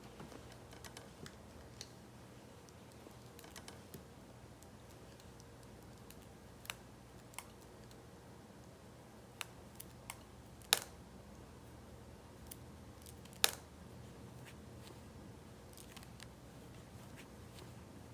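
Scattered light clicks and taps of small objects being handled, two of them sharper about halfway through, over a faint steady hum.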